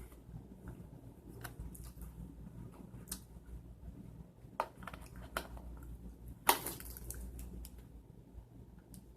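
Scattered small clicks and handling noises over a low steady hum, the loudest a short burst of noise about six and a half seconds in.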